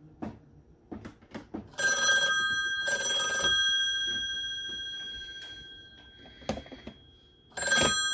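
Western Electric Model 500 telephone's bell ringer: the clapper strikes the gongs in two short bursts about a second apart, the gongs ringing on and fading away over a few seconds. Another ring starts near the end.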